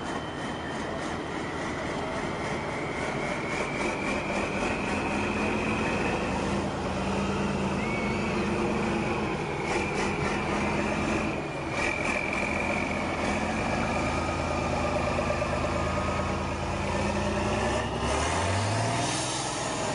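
Six-wheeled off-road trial truck's engine working hard as the truck climbs a steep sandy slope, its pitch shifting as the throttle changes and rising sharply near the end.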